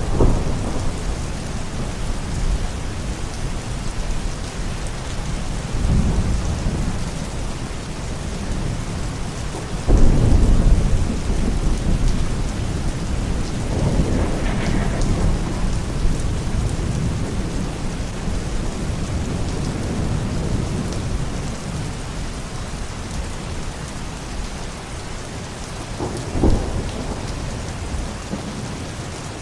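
Thunderstorm: steady rain with rolling thunder. A loud clap about ten seconds in rumbles on for several seconds, another swell of thunder follows a few seconds later, and a sharper crack comes near the end.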